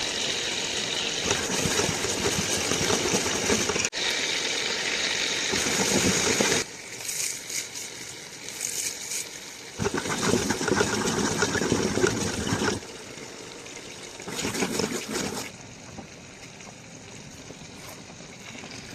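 Water running and splashing, in several separate stretches that start and stop abruptly, the last one quieter.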